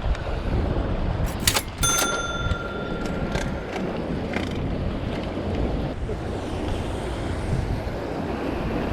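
Wind buffeting the microphone over the rush of the sea. A few sharp clicks come about a second and a half in, then a brief clear ringing tone that fades over about two seconds.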